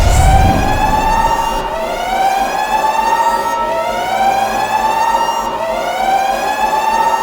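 Siren sounding in repeated rising sweeps, each climbing for about two seconds and then snapping back abruptly to the low pitch before rising again, four times in a row.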